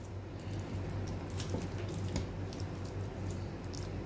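Fingers rubbing and patting thick spice paste onto raw chicken, giving light, scattered wet clicks, over a low steady hum.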